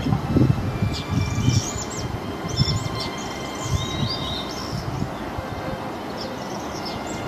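Small birds chirping and calling in short bursts over a low, steady rumble of wind buffeting the microphone.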